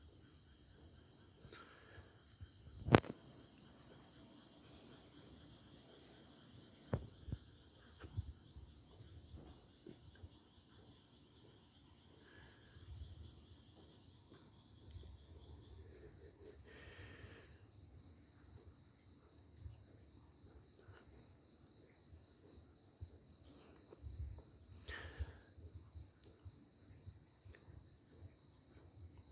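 Crickets trilling steadily in a continuous high, finely pulsing chorus. A sharp knock about three seconds in is the loudest thing, with a couple of smaller clicks a few seconds later.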